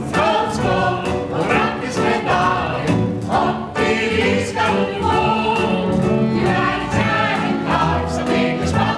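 A group of voices singing together over band accompaniment.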